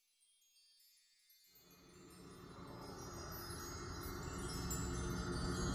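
Soundtrack intro of tinkling wind chimes fading in. A fuller, lower layer joins about a second and a half in and keeps swelling louder.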